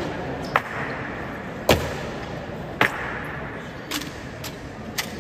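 A series of sharp clicks or knocks, evenly spaced about once a second, over a steady background hum.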